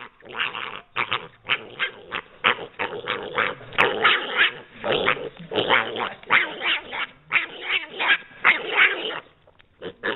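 Piglet chewing potato chips: a quick run of short noisy bursts, about three a second, that stops shortly before the end.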